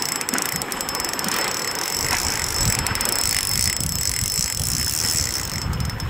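Fishing reel winding in a hooked fish, with runs of ratcheting clicks, over wind on the microphone and choppy water lapping at the kayak.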